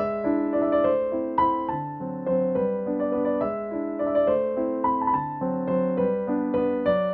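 Background piano music: gentle keyboard chords and a slow melody, with new notes struck every half second or so.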